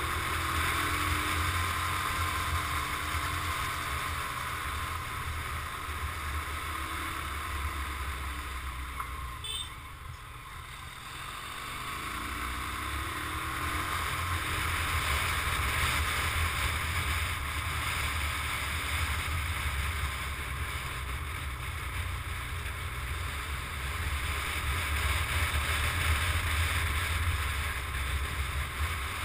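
Wind rushing over the microphone of a moving motorcycle, with the bike's engine running underneath. The noise dips briefly about ten seconds in, then picks up again.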